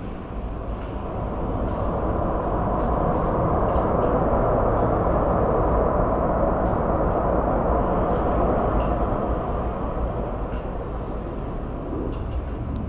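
Jet engine noise from a Korean Air Boeing 777-200ER's two engines as the airliner rolls along the runway: a steady roar that swells over the first few seconds and eases off towards the end.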